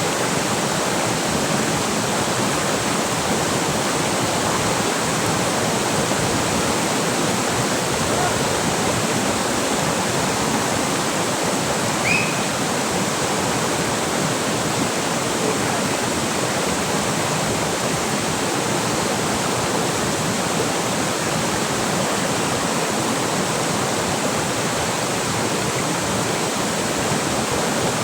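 River water rushing steadily, with one brief high chirp about twelve seconds in.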